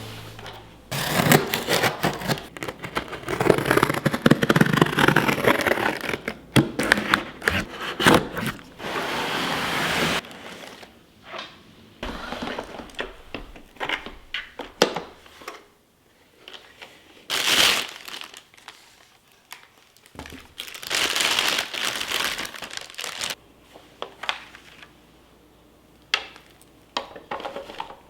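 Packaging crinkling and rustling as it is handled, in irregular bursts: steady for the first several seconds, then sparser with two louder rustles later on.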